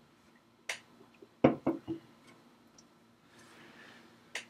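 Quiet room tone broken by a sharp click, then a louder dull knock about a second and a half in followed by two lighter knocks, and another click near the end.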